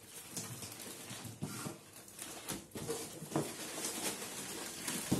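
Rustling and crinkling of parcel wrapping and a cardboard box being handled and pulled open, with a few sharp knocks and taps among it.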